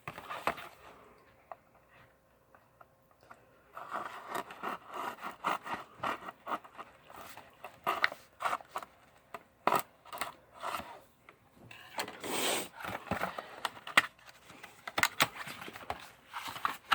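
A cardboard box of valentines being opened by hand: scraping, rustling and clicking of card and paper handling, starting a few seconds in, with a louder stretch about two-thirds through.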